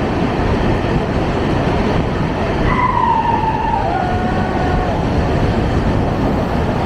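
Train running through a long tunnel: a loud, steady rumble throughout. About three seconds in, a drawn-out whine falls in pitch and fades out near five seconds.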